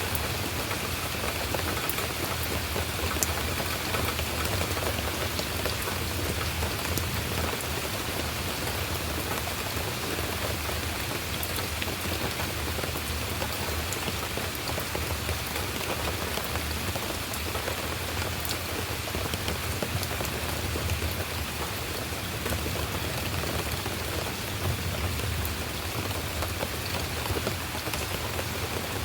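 Steady rain falling, a continuous hiss with scattered sharp drop ticks and a low steady rumble underneath.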